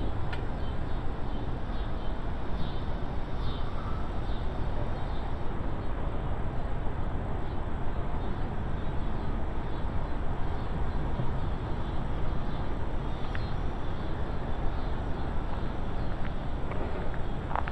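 Outdoor ambience dominated by a steady low rumble of wind buffeting the microphone, with a few faint clicks near the end.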